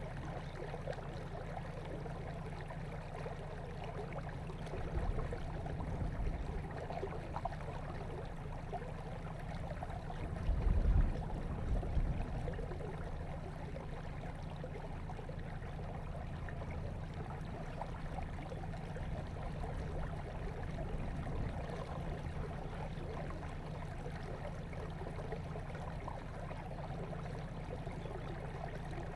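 Small boat moving along a canal: a steady low rumble with water noise, and a couple of louder low surges about five and eleven seconds in.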